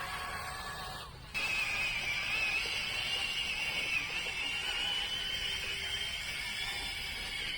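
High-pitched whine of a radio-controlled toy excavator's small electric motors and gearing, wavering slightly in pitch as it works. It cuts out briefly and comes back louder about a second in.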